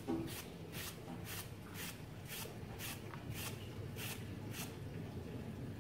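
Light, rhythmic swishing rustles, about two a second, as thinly shaved onion strips are handled and dropped onto a plate of shredded carrot. There is a soft bump at the start, and the rustles stop shortly before the end.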